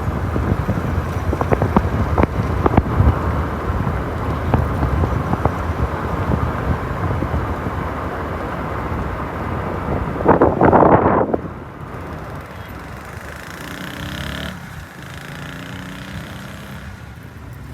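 Road traffic: vehicles passing close by with a heavy rumble that swells about ten seconds in, then drops to quieter traffic with an engine changing pitch.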